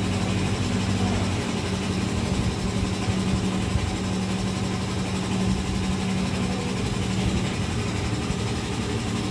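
A machine running steadily, a constant low hum with no change in speed.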